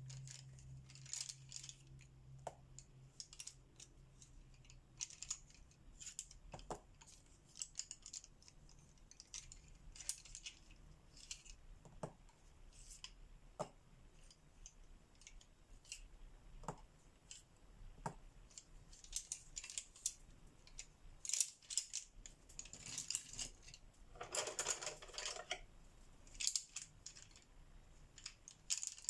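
Colouring on paper: short scratchy strokes come in bursts, with a few light clicks and a longer, denser scratching passage near the end.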